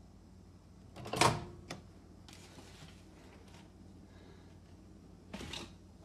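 Microwave oven being handled: a sharp clack of its door latch about a second in, then a few lighter clicks, and a short rushing noise near the end.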